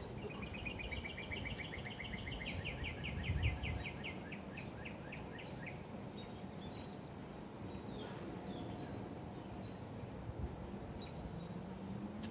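Outdoor ambient noise with a bird trilling: a run of quick, high notes that slow down and stop about six seconds in. A couple of short falling chirps follow about eight seconds in.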